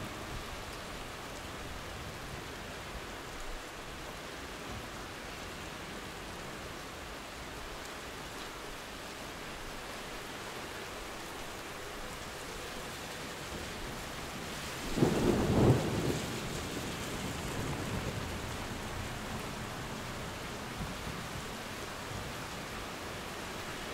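Steady rain falling, with a single clap of thunder about two-thirds of the way through that rumbles off over a couple of seconds.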